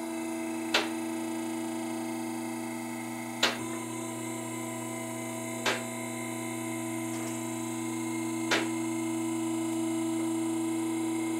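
Electric hydraulic power unit of a Rotary 9,000-pound asymmetric two-post lift running with a steady hum as it raises a pickup, with five sharp clicks, one every two to three seconds, as the carriages' safety locks drop past each lock stop.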